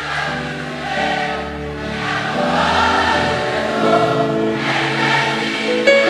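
Gospel worship music: a choir of voices singing long held notes together over a live band.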